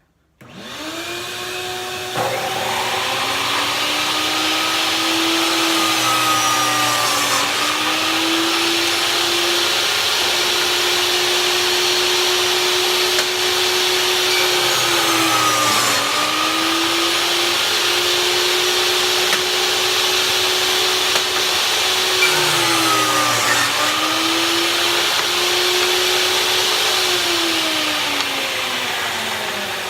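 Skilsaw worm drive table saw starting up and running with a loud, steady whine. Three times the pitch sags briefly and recovers as the blade loads up in the cut. Near the end the pitch begins to fall as the motor winds down.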